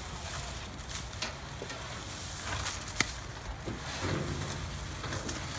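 Dry pine needles rustling and crackling as handfuls are pulled out of a roof gutter, with one sharp click about three seconds in.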